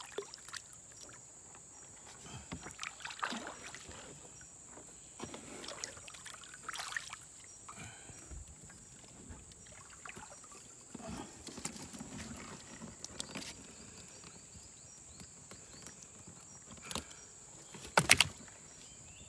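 Water splashing and handling knocks as a gill net is hauled and fish are taken out over the side of a wooden boat, with a couple of loud sharp knocks near the end. A steady high whine runs underneath.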